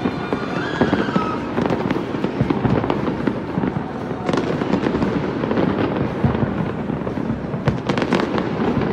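Aerial fireworks bursting from many points across a city skyline, making a dense, continuous rattle of bangs and crackles. A few sharper cracks stand out about four seconds in and near the end.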